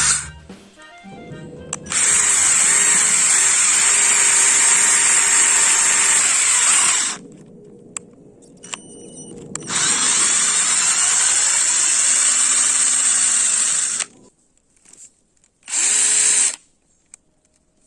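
Buildskill 12V Li-ion cordless drill running in three bursts: about five seconds, then about four seconds, then a short half-second blip, with a high whine over its motor noise.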